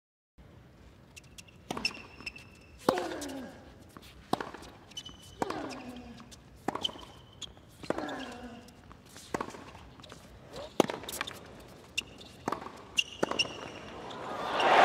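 Hard-court tennis rally: racket strikes on the ball about once a second, short squeaks of tennis shoes on the court, and a player's grunt with some of the shots. The crowd noise swells near the end.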